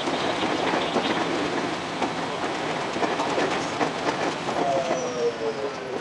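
Running noise of a 521-series electric train heard inside the cab, with wheels clicking over the rails in quick succession. About four and a half seconds in, a motor whine sets in and falls in pitch as the train slows for a station.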